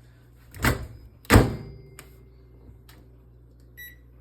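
Microwave oven door knocked and shut with two loud clunks about a second in, then the oven's faint steady hum as it runs for another half-minute to melt the cheese, with a short keypad beep near the end.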